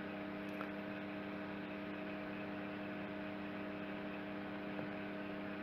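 Steady electrical hum with several fixed tones over a faint hiss.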